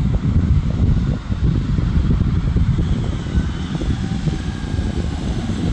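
Low, steady rumble of a heavy truck's diesel engine hauling a loaded container trailer at crawling speed, with a car driving past close by at first.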